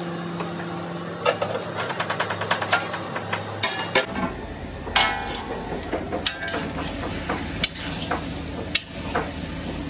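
A long metal ladle knocking and scraping against a large iron kadai while mutton curry is stirred, with clanks of steel utensils, over a steady low hum.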